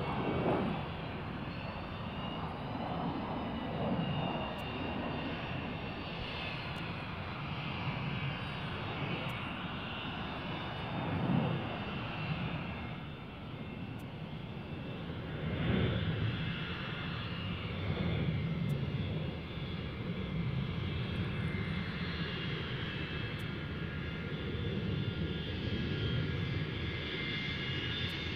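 Aircraft engines running steadily: a low rumble under a whine of several high tones that drift slightly in pitch, swelling a little a few times.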